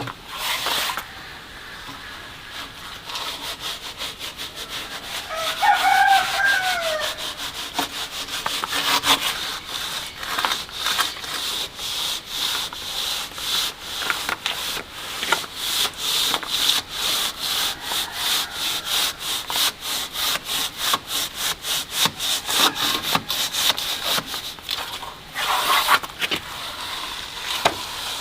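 Rhythmic scraping strokes of a hand tool working a surface, quick and even, several a second, running for most of the stretch. A brief falling call sounds about six seconds in.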